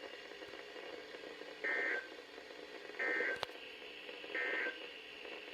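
NOAA Weather Radio SAME end-of-message code through a weather radio's speaker: three short bursts of two-tone data about a second apart, closing the required weekly test. A sharp click comes just after the second burst.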